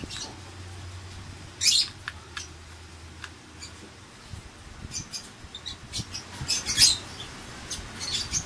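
Lovebirds giving a few short, high-pitched chirps and squawks, spaced out, the loudest about seven seconds in, over a low steady hum.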